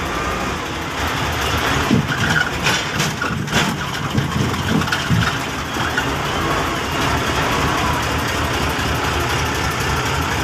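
Heavy vehicle engine running steadily at a log-unloading scene, with a cluster of knocks and clatters from about two to four seconds in.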